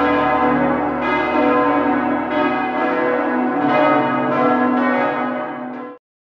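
Bells ringing in a peal, fresh strikes coming every half second to a second and overlapping into a rich ringing, then cutting off suddenly about six seconds in.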